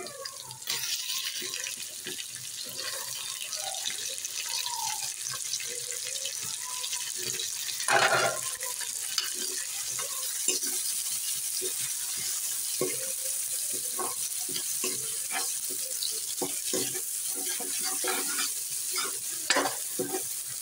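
Chicken pieces frying in hot oil in a large metal pot, sizzling steadily while a steel ladle stirs and scrapes against the pan. The sizzle swells about a second in, and there is one louder clatter about eight seconds in.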